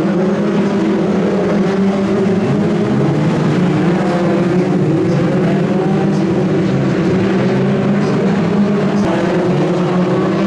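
Several BriSCA F2 stock car engines running together in a loud, steady drone as the cars lap the oval, with individual engines rising and falling in pitch as they rev.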